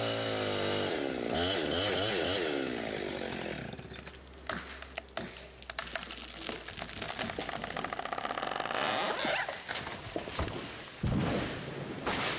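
Chainsaw revving up and down as it cuts, easing off after about three seconds. Scattered sharp cracks and knocks follow, with a heavy thud about eleven seconds in.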